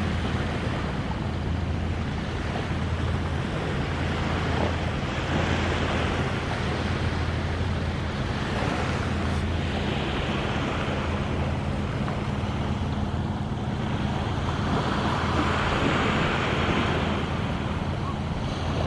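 Steady low hum of a distant engine under an even hiss of wind and small waves on the shore.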